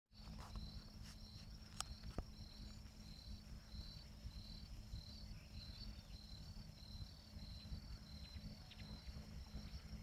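Faint high-pitched insect chirping, repeated in an even pulsing rhythm, over a low rumble. Two sharp clicks come about two seconds in.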